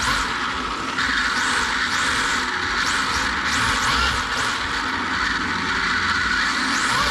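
Onboard sound of a 3-wheel 1/10 RC drift car driving: its Surpass Rocket 13.5-turn brushless electric motor and gearbox give a steady high rushing whine. A higher whine rises and falls repeatedly as the throttle is worked.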